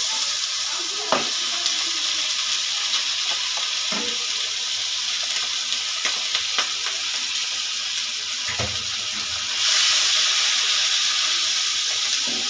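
Tomato masala and meat sizzling in hot oil in a non-stick wok, a steady hiss broken by scattered light knocks and scrapes of a wooden spatula on the glass bowl and pan as the meat is tipped in. The sizzle grows louder near the end as the meat is stirred through.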